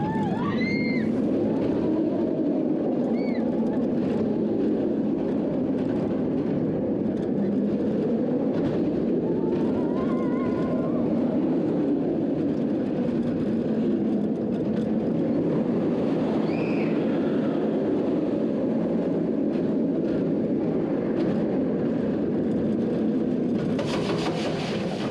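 Kumba, a Bolliger & Mabillard steel looping roller coaster, with its train running at speed: a steady, loud rumbling roar from the wheels on the track and rushing air. Near the end a harsher hiss comes in as the train runs onto the brake run.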